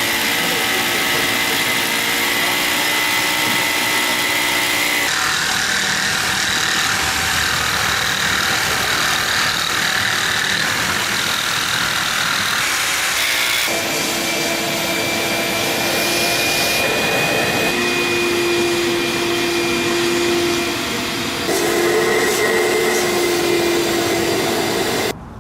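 Wet/dry shop vacuum running continuously with a steady whine, its pitch shifting a few times as the suction load changes, then shut off suddenly near the end.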